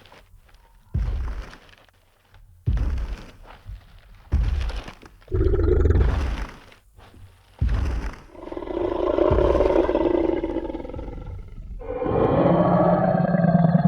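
Sound-effect Tyrannosaurus rex: a run of heavy, booming footstep stomps about every second and a half. These are followed by a long growling roar about eight seconds in, and a second roar starting about twelve seconds in.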